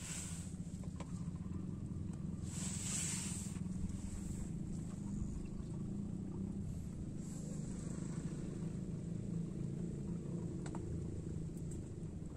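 A steady low engine rumble, with a short rushing hiss about two and a half seconds in.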